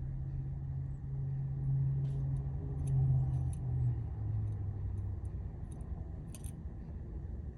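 A steady low mechanical hum that drops slightly in pitch about four seconds in, with a few faint light clicks.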